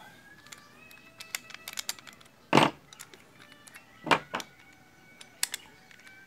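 Small metal clicks and clinks as a flat wrench is worked against the steel nozzle of a Stanley heavy-duty hand riveter to loosen an over-tight part. There is a louder metal clunk about two and a half seconds in and another about four seconds in.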